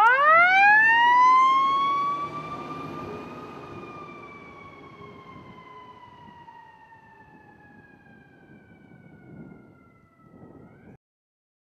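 Fire engine's mechanical siren winding up sharply to a loud wail, then coasting down slowly in pitch and fading over several seconds, with the truck's engine rumbling underneath. Near the end the pitch rises briefly again before the sound cuts off.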